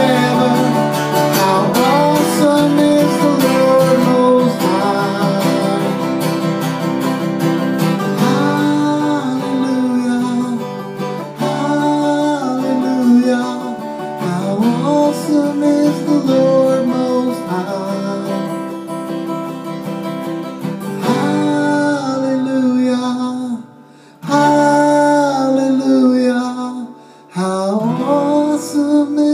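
A man singing, accompanying himself on a strummed acoustic guitar.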